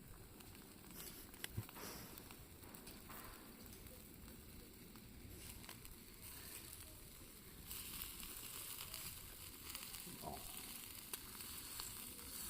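Food sizzling as it cooks, faint at first and louder from about eight seconds in, with a few small clicks.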